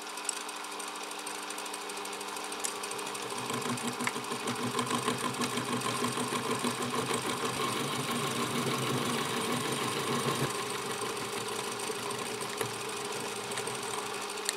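Small milling machine running with an end mill cutting a flat into a metal collet-chuck body held in a vise: a steady motor hum under a rapid, rough cutting chatter. The chatter grows louder and rougher about three seconds in and eases about ten seconds in.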